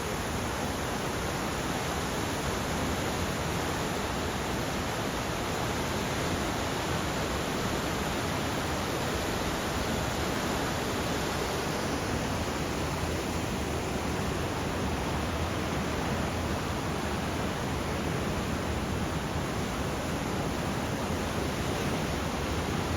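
Waterfall rushing steadily as water pours down a rocky gorge.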